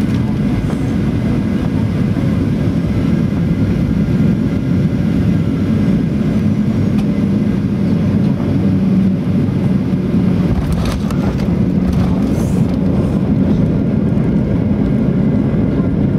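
Boeing 737-800 cabin noise from a seat over the wing: the CFM56-7 engines and the airflow in a loud, steady drone on the final moments of the approach. About two-thirds of the way in the wheels touch down with a few knocks and rattles, and a deeper rumble of the wheels rolling on the runway joins in.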